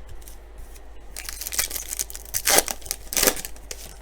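A sealed baseball card pack's wrapper being torn open and crinkled, with a run of crackling rips, the loudest two about halfway and three quarters of the way through.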